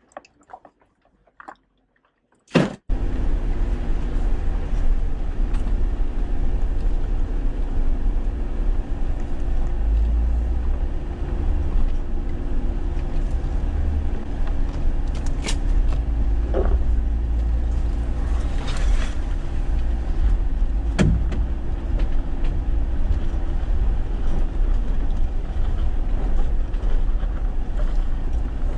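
Jeep Wrangler driving up a dirt off-road trail, heard from inside the cabin: a steady low engine and road rumble with a few sharp knocks and rattles from the rough ground. The first couple of seconds are nearly quiet with a few clicks, then a sharp bang about two and a half seconds in as the rumble starts.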